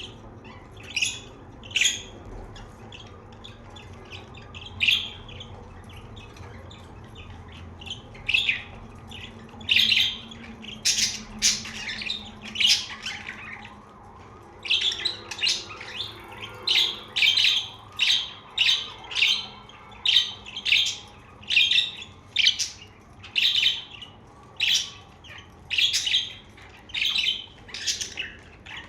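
Pet budgerigars chirping and squawking in short loud calls, a few at first and then roughly one a second through the second half, with softer chatter between them.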